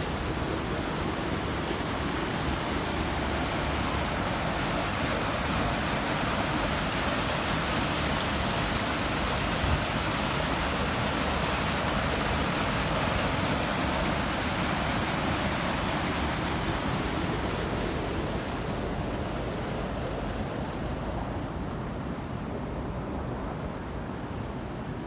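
Water rushing over a low weir at a canal sluice: a steady, loud rush that is strongest mid-way and fades over the last several seconds.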